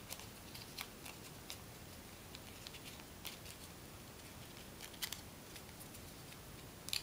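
Faint, sparse crinkles and ticks of origami paper being handled and pressed into shape by fingers, a few seconds apart, over quiet room tone.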